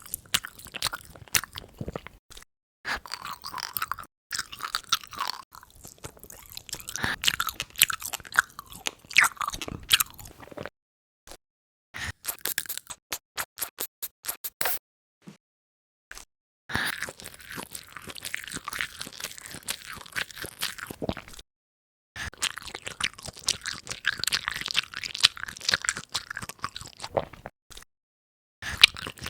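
Close-up mukbang eating sounds: wet crunching and chewing in several stretches broken by short pauses, with a quick run of even, sharp crunches in the middle.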